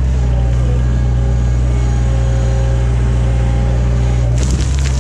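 Skid steer engine running steadily at a constant speed, a loud low drone. Near the end a broad hissing noise joins it.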